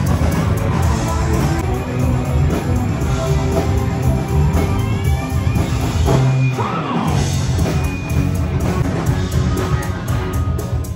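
A rock band playing loudly live: electric guitar through a Marshall amp over a full drum kit.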